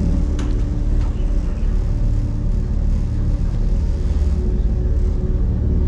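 Low, steady rumbling drone with a few held tones over it, the flying theater's pre-show ambience of workshop machinery played through the ride's sound system. A single click about half a second in.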